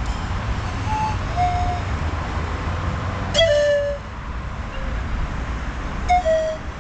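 Pan flute played through a small amplifier: a few separate held notes, two of them blown sharply about three and six seconds in, over a steady low traffic rumble.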